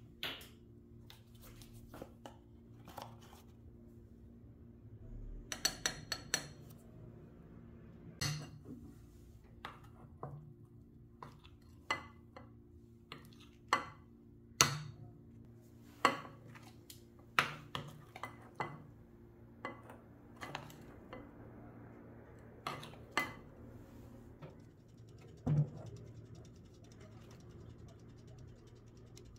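A spoon clinking and scraping against a ceramic bowl while cocoa powder is stirred into cake batter: irregular sharp clinks, some in quick clusters. Near the end the spoon knocks against a metal loaf tin as batter is spooned in.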